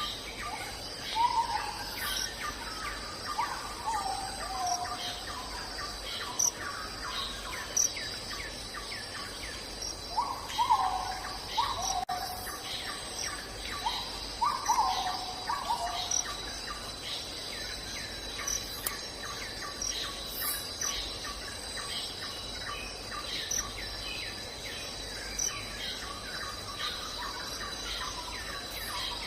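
Forest ambience: a steady high-pitched insect drone under bird calls. Small groups of falling whistled notes come a few seconds in, about ten seconds in and around fifteen seconds in, with many short chirps all through.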